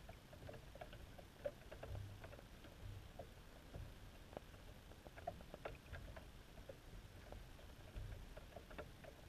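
Faint underwater sound heard through a camera's waterproof housing: scattered irregular ticks and clicks, with a few soft low thumps.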